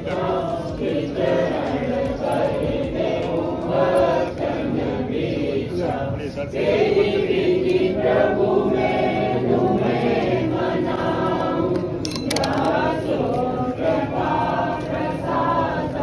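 A crowd of devotees singing a devotional chant together in chorus, many voices overlapping without a break.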